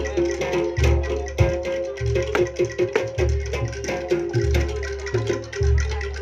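Jaranan (kuda lumping) ensemble music from Malang: deep low beats about every second and a quarter, sharp percussion strokes in between, and steady ringing metal-chime tones over them.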